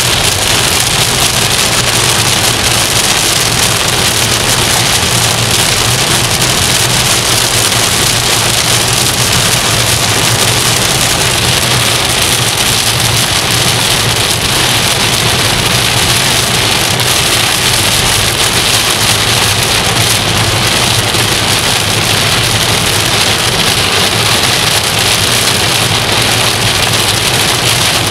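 Heavy rain pelting the windshield and roof of a moving car, heard from inside the cabin as a steady hiss, with the car's low steady road noise underneath.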